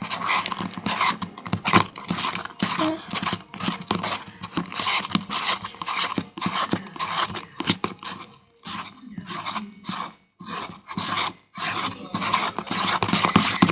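Slime mixture of glue, toothpaste and liquid soap, just starting to clump after slime activator was added, being stirred in its container: irregular wet squelching and scraping strokes, with a few brief pauses in the second half.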